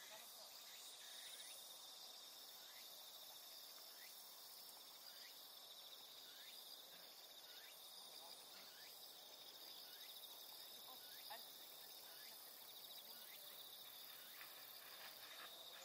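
Faint chorus of late-summer insects: a continuous high, finely pulsing trill, with faint short falling chirps repeating about once a second.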